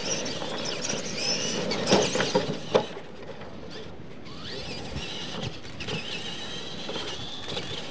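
Electric motors and gearboxes of Tamiya Clod Buster-type radio-controlled monster trucks whining, rising and falling in pitch as the trucks speed up and slow down. A few sharp knocks come about two to three seconds in.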